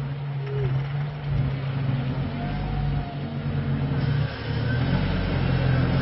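Lifted Jeep MJ (Comanche) pickup's engine running under load as it crawls up a slick, muddy rock ledge, steady at first, then eased off briefly about four seconds in and revved harder.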